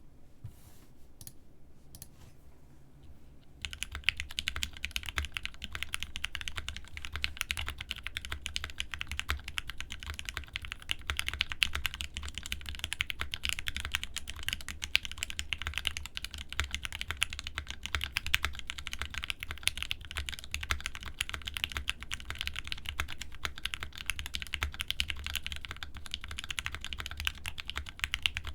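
Think6.5 v2 65% mechanical keyboard with lubed Tealios linear switches, 68g progressive springs, an FR4 plate and GMK keycaps being typed on fast and continuously. A few faint clicks come first, and steady rapid typing starts about four seconds in.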